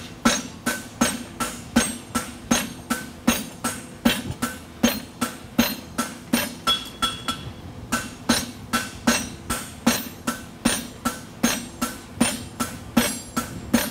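Hand hammer striking a red-hot steel bar on an anvil in a steady rhythm of about two to three blows a second, each with a short metallic ring: the bar's edge being forged down while a horseshoe is made.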